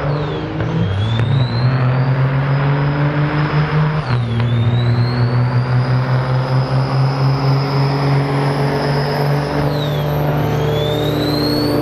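Loaded diesel semi truck accelerating hard through its gears, its engine note and high turbo whistle climbing, then dropping sharply at gear changes about four and ten seconds in before climbing again.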